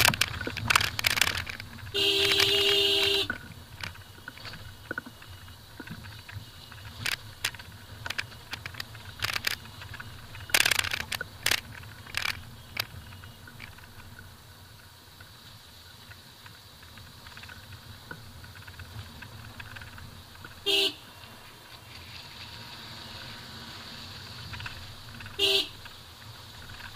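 A Maruti Suzuki Vitara Brezza crawls over a rough dirt road: a low steady rumble of engine and tyres, broken by knocks and rattles as it goes over bumps. The car's horn sounds for about a second near the start, then gives two short toots later on, warning traffic round the blind bends.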